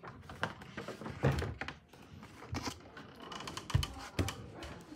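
Handling noise: irregular clicks and taps with a few dull thumps as the phone is moved about and things are handled close to it.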